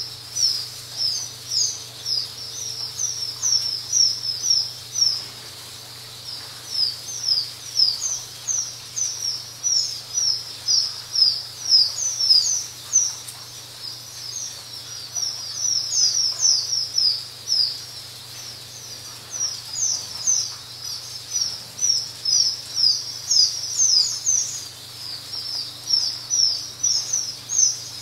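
A crowd of pheasant chicks peeping nonstop: short, high, falling peeps, several a second and overlapping, thinning out briefly a couple of times. A faint low hum runs underneath.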